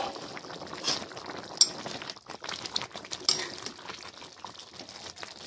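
Tahari rice with peas and potatoes boiling in a pan on high flame: a steady bubbling hiss with small pops. A few sharper clicks stand out, the loudest about one and a half and three seconds in.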